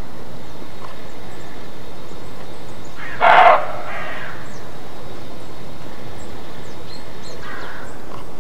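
Roe deer barking: one loud, short, hoarse bark about three seconds in, and a fainter bark near the end. This is the alarm bark that hunters call 'Schrecken'.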